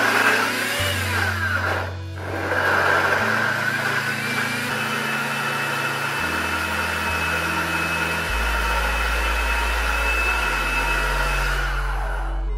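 Countertop blender running, blending frozen blueberries with lemon and mint into a slushy; it dips briefly about two seconds in, starts again, and cuts off near the end. Background music with a steady bass line plays underneath.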